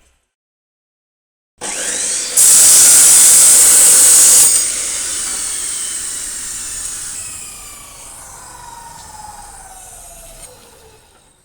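Power tool cutting steel: the motor starts about a second and a half in, bites into the metal with a loud, harsh hiss for about two seconds, then is let off and spins down with a falling whine that fades out near the end.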